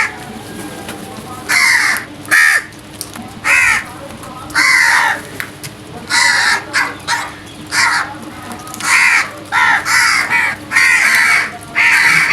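Several crows cawing over one another: a steady run of short harsh caws, one or two a second.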